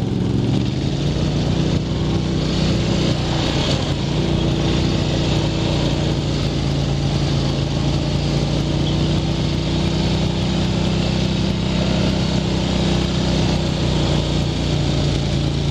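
Single-cylinder ATV engine running at a steady pitch while riding, with a steady rushing noise of wind and tyres above it.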